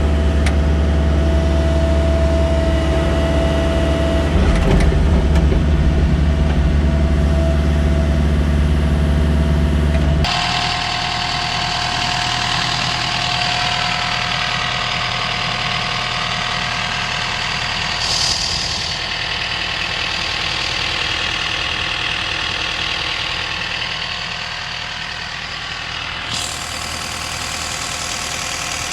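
Diesel engine of a Sany SY50C mini excavator running steadily with a heavy low hum. About ten seconds in, the sound changes abruptly to a thinner, hissier engine sound with a steady higher tone, and there is a short high-pitched burst about two-thirds of the way through.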